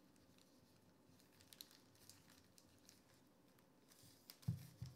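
Faint rustling and light clicks of thin cardboard trading cards being handled and slid one behind another, with a short low thump about four and a half seconds in.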